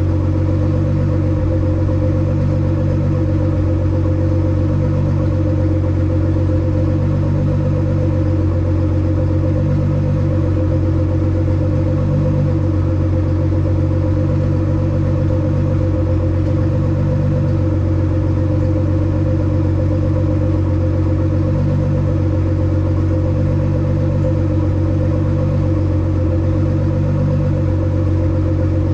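Nissan GT-R R35's tuned twin-turbo 3.8-litre VR38DETT V6, modified to stage 5+, idling steadily with an even pulse and no revving.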